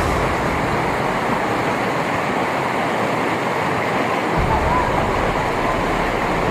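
Steady rush of a white-water river running through rapids.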